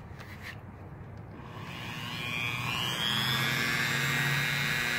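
Dremel rotary tool with an abrasive grinding bit spinning up with a rising whine about a second and a half in, then running steadily as it grinds the curb-rashed lip of an aluminum wheel.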